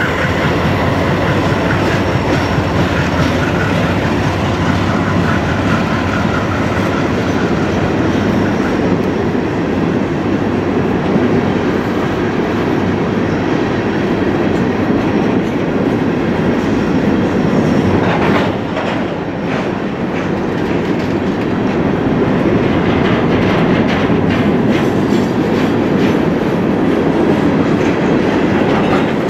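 Freight train passing close by: diesel locomotive engines running as the lead units go by, then a string of empty steel ore hoppers rolling past with a steady rumble. In the second half come clusters of wheel clicks over the rail joints, with some faint wheel squeal on the curve.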